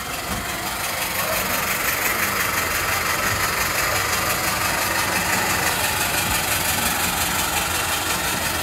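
Steam locomotive standing in steam on a turning turntable: a steady hiss over a low mechanical running sound, swelling about a second in and then holding even.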